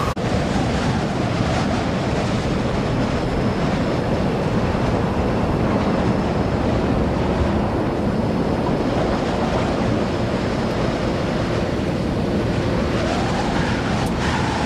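Steady rush of running or spraying water as a muddy toy is washed clean.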